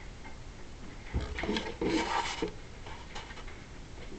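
Rubbing and knocking noises of something being handled, starting about a second in and lasting about a second and a half, over faint room noise.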